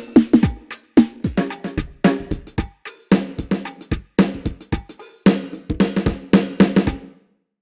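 Sampled drum hits from a Ketron SD90 drum soundfont played in quick succession, many of the low drums dropping in pitch as they ring. The playing stops abruptly about seven seconds in.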